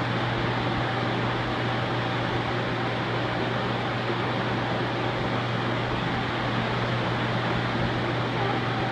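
A steady low machine hum over an even hiss, unchanging throughout.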